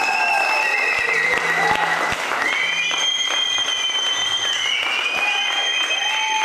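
Audience applauding, with several high, steady held tones sounding over the clapping.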